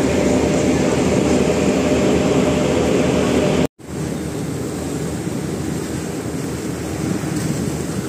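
Steady drone and rush of the passenger ship KM Wilis under way at sea, engines running. It breaks off abruptly a little under four seconds in, then carries on somewhat quieter.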